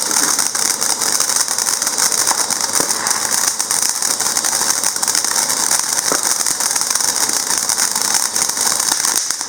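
Ground fountain firework burning with a steady, dense crackling hiss.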